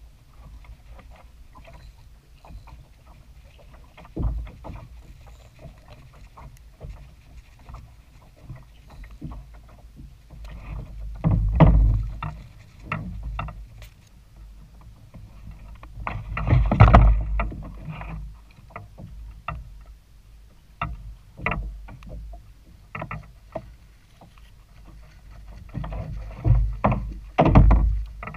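Water sloshing against a fishing kayak's hull under a steady low rumble, with several sudden louder splashes and knocks. The loudest come about 12, 17 and 27 seconds in.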